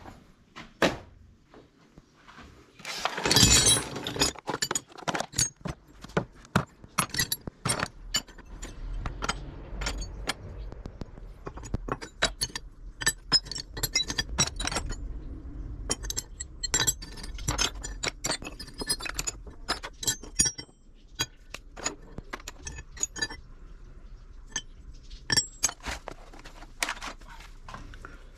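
Small pieces of scrap steel clinking and clattering against each other and the wooden workbench as they are handled and sorted by hand, with a dense clatter about three seconds in and scattered clinks and knocks after.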